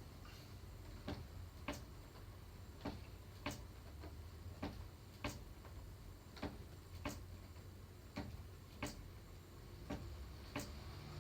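Wooden rocking chair creaking as it rocks: two creaks to each rock, forward and back, about one rock every two seconds, over a low steady hum.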